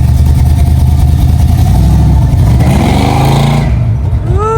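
Car engine running with a steady low drone, then revving up about two and a half seconds in, with a quick rise-and-fall rev near the end.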